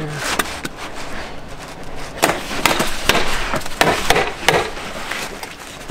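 Hammer tacker driving staples through building paper into OSB sheathing: a quick run of about six sharp strikes starting about two seconds in.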